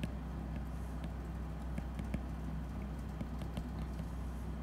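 Light, irregular ticks of a stylus tapping on a tablet's glass screen during handwriting, over a steady low hum.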